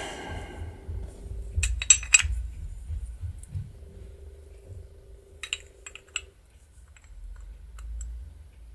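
Light metallic clicks and clinks of small metal window-handle parts being handled and set down, in two short clusters: one about two seconds in and another a little past halfway. A faint steady hum runs underneath.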